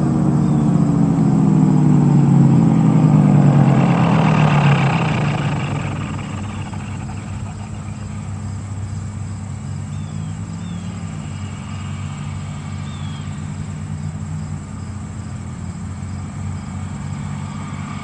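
Federal Sign & Signal 4/5-port Thunderbolt 1000T siren winding down, its pitch falling steadily over the first five or six seconds as it fades. A steady low hum carries on after it.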